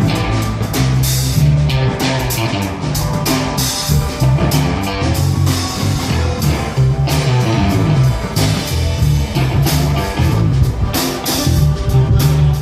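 Live rock band playing: guitar over a moving bass line, with drums and cymbals keeping a steady beat.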